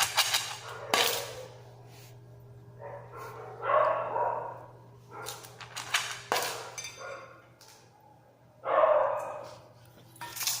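A dog barking in two short bouts, with a few sharp clicks or knocks in between, over a steady low hum.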